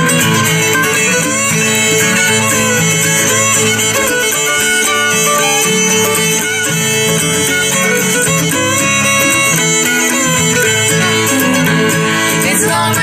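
Acoustic bluegrass band playing an instrumental break, the fiddle carrying the melody over strummed guitar and plucked strings.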